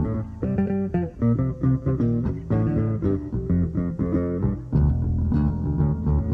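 Rock music: a plucked guitar melody over a bass guitar and a steady pulsing beat.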